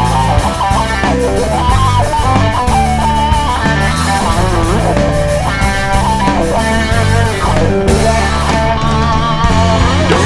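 Instrumental break of a country rock song: an electric guitar lead plays bending notes over steady bass and drums.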